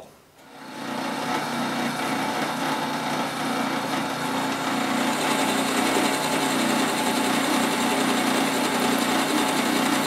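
Drill press running with a 1-inch bit boring into a poplar block: a steady motor hum under the scraping of the bit cutting wood. It builds up within the first second, then holds steady.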